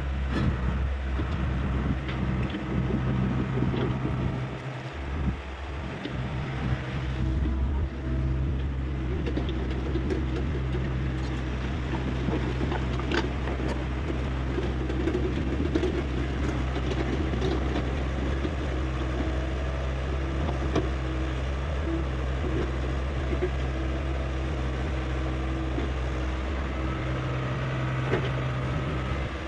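Hyundai 85A excavator's diesel engine running steadily as a constant low drone, with a few faint knocks over it.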